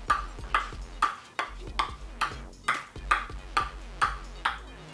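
Ping-pong ball bouncing repeatedly on a table tennis paddle held flat, a steady series of sharp ticks a little over two a second.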